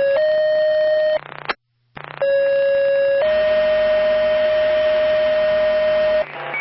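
Two-tone sequential paging tones over a fire/EMS dispatch radio channel, which set off a squad's pagers. A steady tone steps up to a slightly higher one that stops about a second in. After a short break, a lower tone sounds for about a second, then a higher tone is held for about three seconds and ends in a burst of radio hiss.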